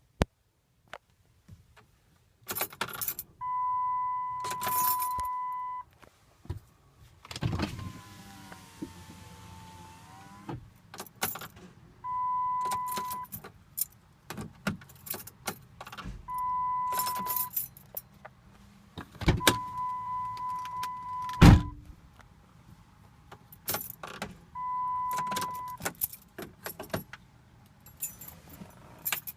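Keys jangling and clicking in the ignition of a 2009 VW Routan SEL during start attempts, with repeated knocks and clicks. A steady dashboard warning tone comes on again and again, each time for one to two seconds. The engine does not turn over: the intermittent no-start fault.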